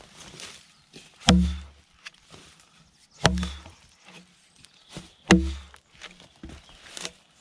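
Yankee pattern axe with a thin 16-degree chisel grind chopping down into a log: three heavy thuds about two seconds apart, then a lighter knock near the end.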